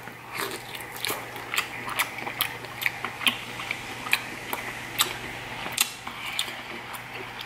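Close-up chewing and biting of grilled lobster tail meat, with sharp wet mouth clicks coming irregularly a few times a second.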